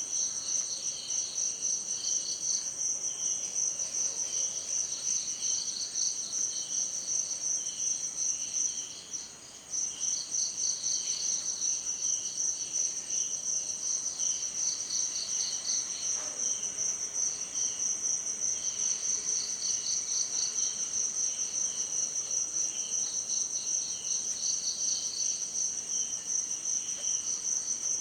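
A dense chorus of insects chirping in fast, steady pulses, high-pitched and continuous, thinning briefly about nine seconds in before resuming.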